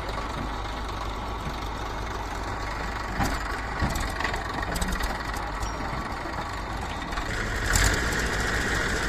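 Heavy diesel engine running steadily, with a few sharp knocks in the middle and a louder, busier stretch near the end.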